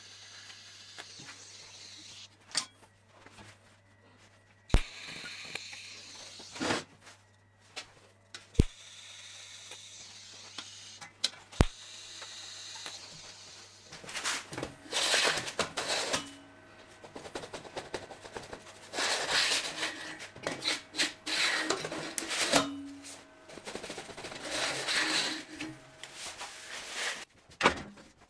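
TIG welding arc with a steady low hum and faint hiss, broken by a few sharp clicks. Past the halfway point come several loud, uneven stretches of noise from work on the steel frame.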